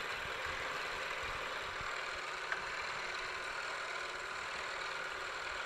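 Vertical milling machine running steadily, the end mill taking a light pass of a few thousandths while the table is fed by hand.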